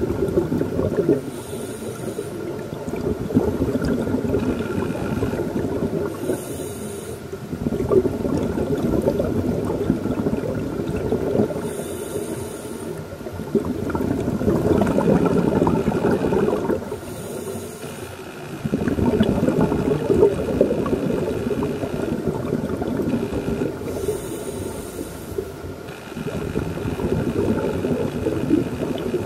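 Underwater scuba breathing through a regulator: long bubbling exhalations alternate with short hissing inhalations, about one breath every five seconds.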